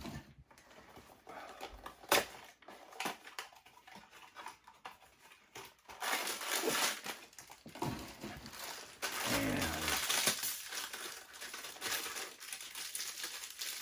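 Packaging being handled and opened: crinkling and rustling of a blind-box foil bag and cardboard, with scattered clicks. The rustling is busiest from about six to twelve seconds in.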